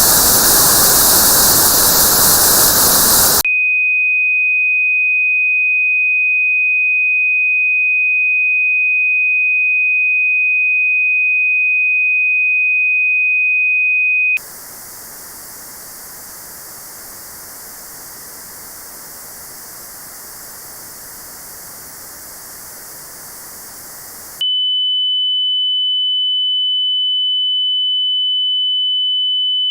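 Tinnitus-matching test sound: notched white noise, a loud hiss with a band of pitches cut out of it, switches about three seconds in to a steady, high-pitched pure test tone. Around fourteen seconds in, a quieter notched hiss returns, with its cut-out band set a little higher. Near twenty-five seconds in it switches to a second steady tone, slightly higher than the first, as the test steps up in frequency.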